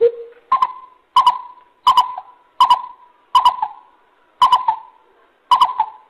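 Greater coucal (bubut) calling: a run of about eight short hooting notes, roughly one every two-thirds of a second, the first lower-pitched and the rest higher, each starting sharply.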